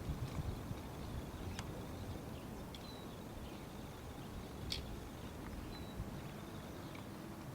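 Wind rumbling on the microphone, with a few brief high bird chirps and a couple of sharp clicks.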